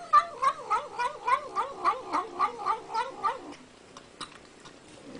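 Domestic cat yowling in a quick run of about a dozen short, wavering calls, three or four a second. The calls stop after about three and a half seconds.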